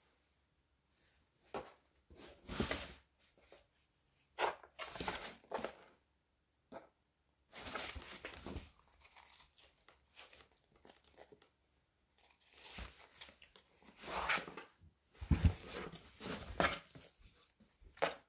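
A cat shifting about in a cardboard box: irregular scrapes and rustles of its fur and paws against the cardboard, coming in short bursts with brief pauses.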